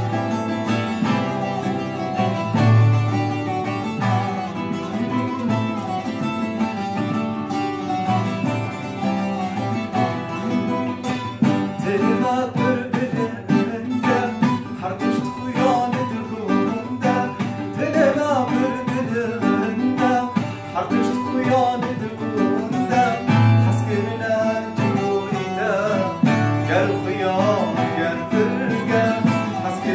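Strummed acoustic guitar and a plucked bağlama (long-necked saz) played together as a folk-style accompaniment, with a man's singing voice joining over them from about eleven seconds in.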